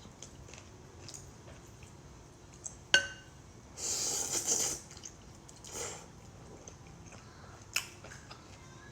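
Someone eating a bowl of bún bò Huế noodle soup: a utensil clinks sharply against the bowl about three seconds in, then a loud slurp lasting about a second, a softer slurp, chewing, and another sharp clink near the end.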